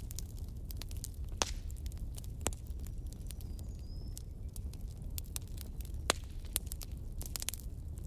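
Wood fire burning in a fireplace: irregular sharp crackles and pops over a low steady rumble, with a faint short whistle about halfway through.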